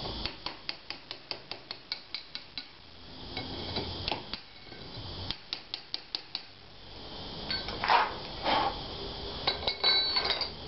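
Hammer tapping a steel plugging chisel to rake lime mortar out of a brick joint: runs of quick light metallic taps, about five a second, with two heavier blows later on.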